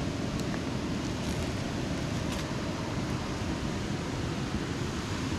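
Steady rushing of river water, a constant even noise, with a few faint clicks.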